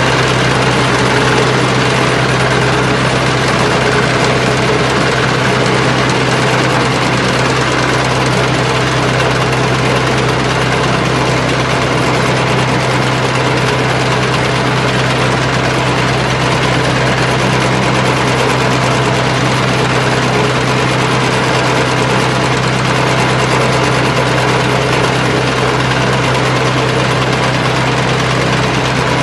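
Self-propelled beach cleaner running steadily: its engine drives the shaking debris sieve, sifting sand and leaves, with a constant low hum under a steady hiss.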